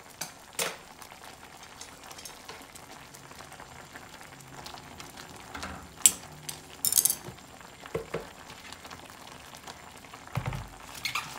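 Pot of ramen noodle soup with bok choy bubbling on the stove, a steady soft bubbling hiss as the noodles finish cooking. A few sharp clicks and taps come through it, the loudest about six seconds in.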